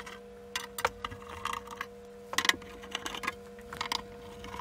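Sheet-metal top cover of an eye-tracker controller case being unscrewed and lifted off: irregular small clicks, taps and scrapes of screwdriver and metal panel, the loudest cluster about halfway through.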